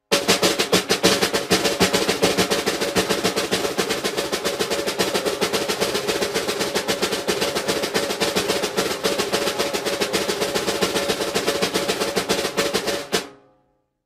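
Military snare drum played in a fast, continuous run of strokes, stopping near the end with a short ring-out.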